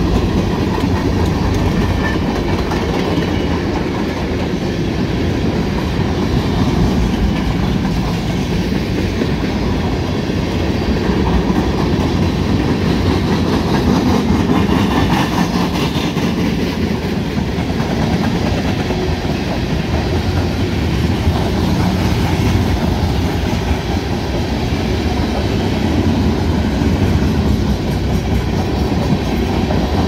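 Freight train cars rolling steadily past: the continuous rumble of steel wheels on the rails.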